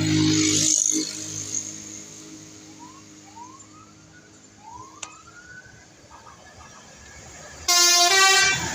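Basuri 'telolet' multi-tone bus horn. A loud, steady low tone sounds in the first second. Near the end, after a quieter stretch, the horn plays a short melody of several notes stepping in pitch.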